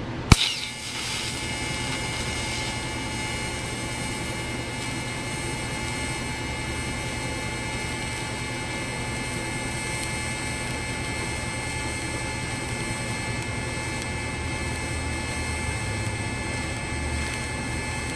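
TIG welding arc struck with a sharp crack about a third of a second in, then held as a steady hiss and hum with thin high whines while steel is welded with filler rod.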